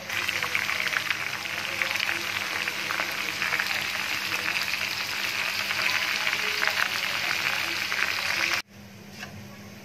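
Sliced onions deep-frying in hot oil in a pan: a loud, steady sizzle thick with fine crackling. It cuts off abruptly near the end.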